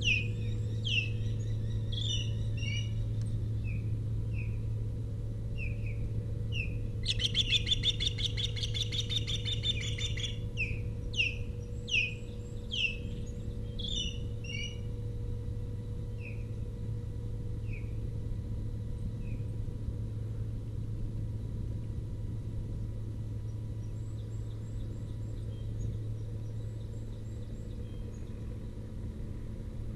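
Ospreys calling: a run of short, falling, whistled chirps, with a rapid, dense burst of calling about seven seconds in that lasts some three seconds. The calls thin out after about twenty seconds, over a steady low hum.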